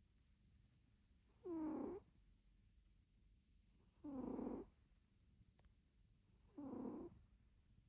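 Cat snoring in its sleep: three short, pitched snores about two and a half seconds apart, with quiet breathing between them.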